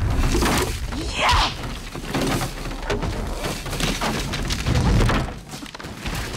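Film fight sound effects: heavy thuds and crashes of wooden beams breaking, over the film's music score. The loudest hits come about a second in and again near five seconds.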